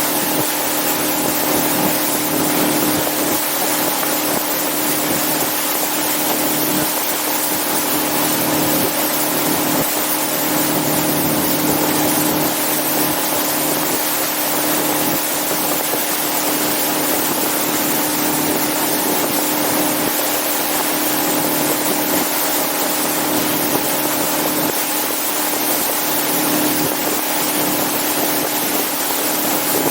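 Motorboat engine running steadily at cruising speed, a constant drone under a loud rush of wind and water.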